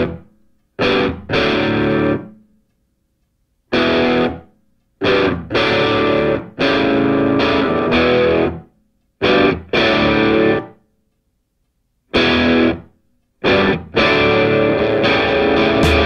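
Background music: distorted electric guitar chords played in short stop-start stabs with dead silences between them.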